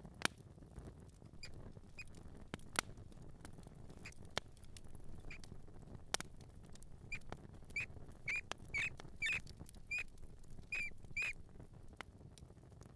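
A mouse squeaking in short, high squeaks: faint and scattered at first, then a quick series of louder ones in the second half. A few sharp clicks or taps come in the first half.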